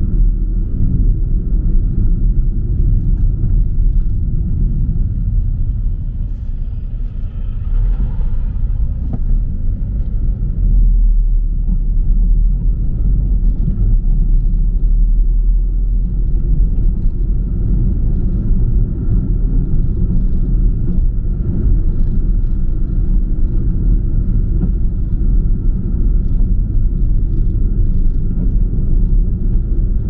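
Car driving on a country road, heard inside the cabin: a steady low rumble of tyres and engine with a faint steady high whine above it. The rumble eases briefly about six seconds in and picks up again around ten seconds.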